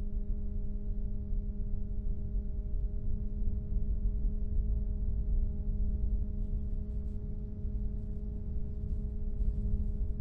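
Noctua NF-R8 80 mm fan running steadily: an even hum with several evenly spaced overtones over a low rush of air.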